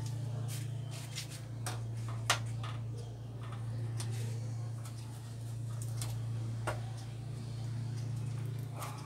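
LED backlight strips being positioned and pressed by hand onto a TV's sheet-metal back case: scattered light clicks and taps, the sharpest about two seconds in, over a steady low hum.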